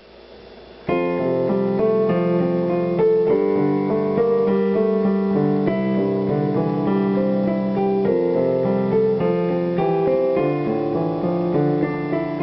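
Keyboard music in a piano sound, playing held chords that come in about a second in.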